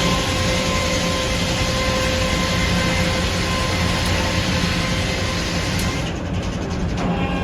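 Sawmill saw cutting through a red oak log over steadily running mill machinery, with a steady whine over the hiss of the cut. About six seconds in, the higher hiss falls away as the cut ends, leaving the machinery running.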